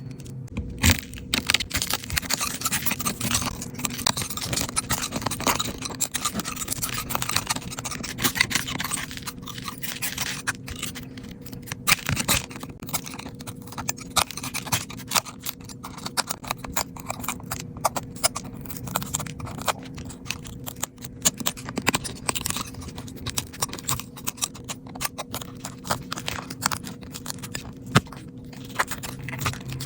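Small hand tools scraping and clicking irregularly against an iPhone during a repair, over a faint steady hum.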